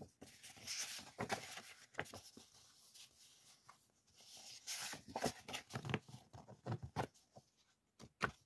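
Sheets of thin printed background paper being shuffled and flipped through by hand: irregular paper rustling and sliding with quick sharp taps of the sheets.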